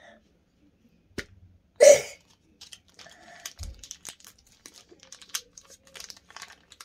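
Toy packaging crinkling and rustling as a child tries to tear it open, with one loud rustle about two seconds in followed by a run of small crackles.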